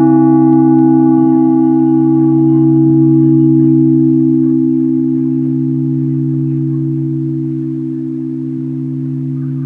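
Large church bell ringing on after a strike, with no new strike. Its deep hum holds steady while the higher overtones die away over the first few seconds, and the whole sound slowly fades.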